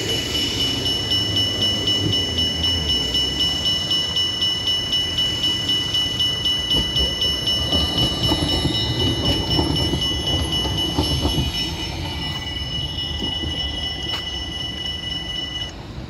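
Level-crossing warning bell ringing in even strokes, about two to three a second, stopping shortly before the end. Under it a RET low-floor tram rolls past with a rising and fading rumble and scattered clicks from its wheels on the rails.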